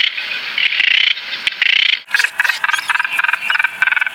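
Brown noddy calls: harsh, rattling croaks repeated in quick bursts, changing about halfway to a faster, more buzzing rattle.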